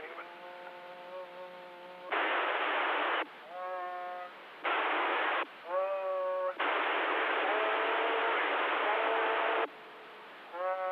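Stryker CB radio's speaker alternating between three bursts of loud static hiss, the longest about three seconds, and held, slightly wavering tones in between, all with a thin, band-limited sound.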